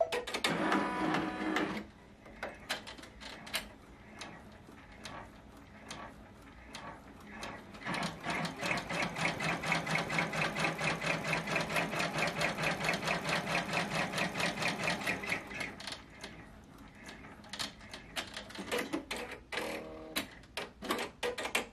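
Multi-needle embroidery machine stitching a running-stitch positioning line. Its needle bar gives a fast, even, rhythmic chatter for several seconds in the middle, with quieter clicks and mechanism sounds before and after as the machine starts up and slows to a stop.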